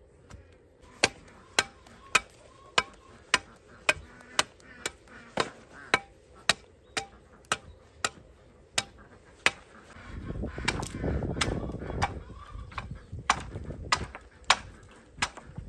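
Machete blade chopping into the end of a wooden pole, shaping it to a point: sharp wooden chops at about two a second. About ten seconds in there is a stretch of low rumbling noise, and the chops become sparser.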